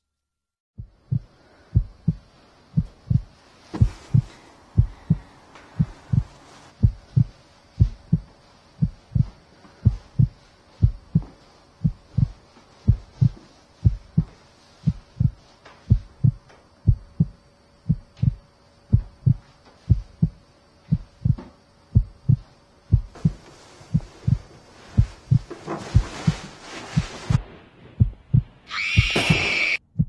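Heartbeat sound effect: a steady run of low, evenly paced thuds over a faint steady drone. A hissing swell builds in the last several seconds, and a sharp, bright burst comes just before the end.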